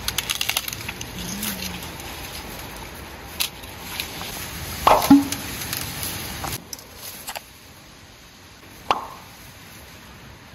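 Ears of maize being snapped off their stalks by hand: a few sharp snaps, the loudest about five seconds in and another near nine seconds, with lighter clicks at the start.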